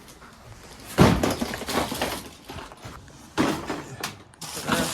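Hard objects clattering and knocking together as items are shifted about, in three bursts: a loud one about a second in, another past three seconds, and a third near the end.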